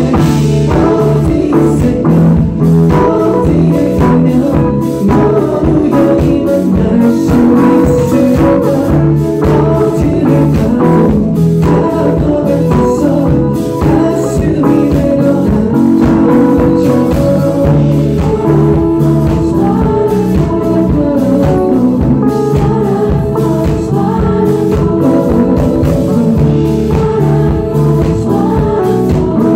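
Live concert performance: a male singer's vocals over a band with a steady beat, amplified through the hall's PA.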